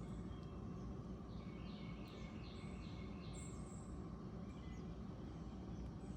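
Faint birdsong over a low steady outdoor background: one bird repeats a short note about three times a second for a couple of seconds, and another gives a brief higher call.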